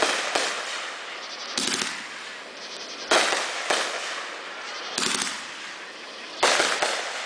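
Aerial fireworks bursting overhead: six sharp bangs, about one every second and a half, each fading away over about a second.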